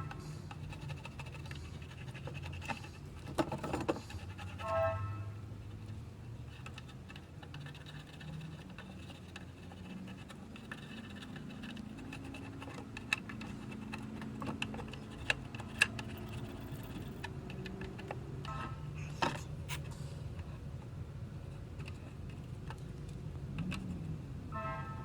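Small clicks and taps of tools being handled at an electronics workbench during soldering, over a steady low hum.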